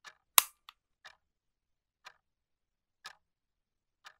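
Clock ticking softly about once a second, with one loud sharp click about half a second in.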